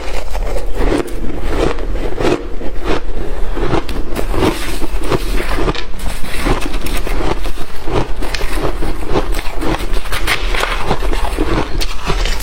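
Close-miked chewing of shaved freezer frost: continuous wet, icy crunching, about two to three crunches a second.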